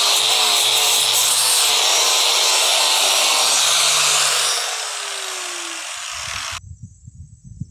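Angle grinder with a sanding disc sanding the edge of a wooden slab, a loud steady grinding hiss. About four and a half seconds in, the disc comes off the wood and the motor winds down with a falling whine, then the sound cuts off suddenly. Quieter low rumbling and a thump follow near the end.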